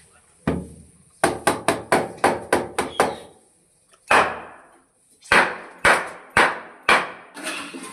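A hammer striking wood in a quick run of about eight blows, then four slower blows, with a longer, noisier sound in between.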